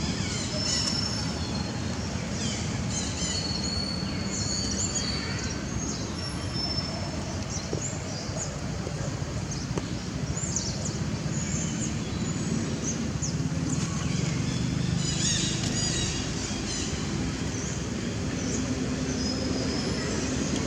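A steady low mechanical rumble with many short high-pitched chirps and squeaks over it. The chirps come thickest in the first few seconds and again about three-quarters of the way through.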